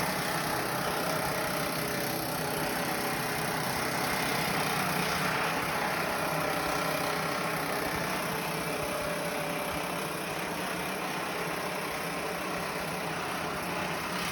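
Pneumatic air hammer running continuously, rapidly hammering down the tail of a sheet-metal duct's Pittsburgh pocket seam to close the lock.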